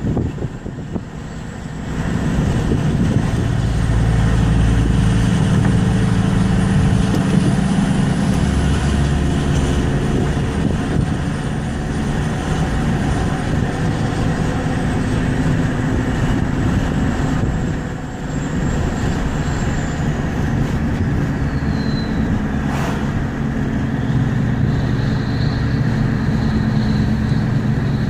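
Ford F-350 turbo diesel running with its turbocharger whistling over the engine's steady drone. The thin high whistle climbs slowly, falls away in pitch about twenty seconds in, and comes back lower near the end.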